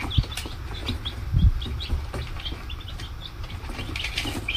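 Baby chicks peeping: short, high cheeps scattered throughout, busier near the end. A soft low thump comes about a second and a half in.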